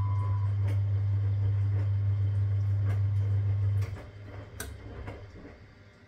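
1962 Constructa K4 washing machine running, its motor giving a steady low hum while the laundry tumbles, with a few light knocks. About four seconds in the hum cuts off and the drum comes to rest, fading with a couple more knocks: the machine pausing between turns of the wash.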